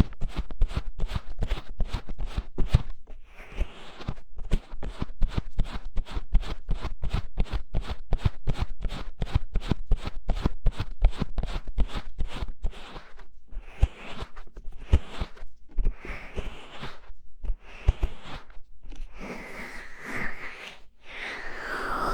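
Hands rapidly covering and patting the ears of an ASMR microphone, about three muffled thumps a second. Past the middle the strokes become slower and more irregular, and near the end there is a hollow, cupped ringing.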